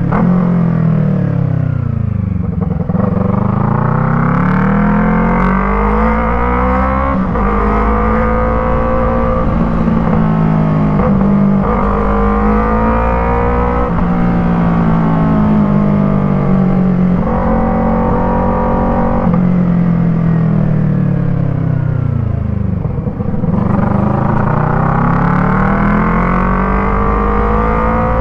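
Yamaha MT-03's parallel-twin engine running through an Arashi exhaust fitted with a dB killer, heard while riding. The revs fall off to a low about two seconds in, climb again through several gear changes, hold steady, then drop and rise once more near the end.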